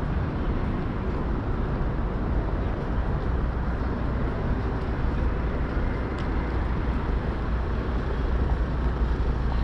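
Steady city traffic noise: a continuous low rumble of passing vehicles, with no distinct events standing out.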